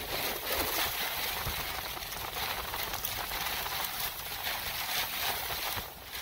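Strong wind and rain close to a tornado: a steady rushing noise with no pitched sound in it.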